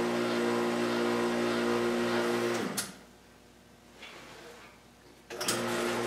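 Powered hydraulic pump of a shop press running with a steady hum while pressing a new bearing into the eye of an excavator boom cylinder. It cuts off with a click a little under three seconds in, then clicks back on and runs again about two and a half seconds later.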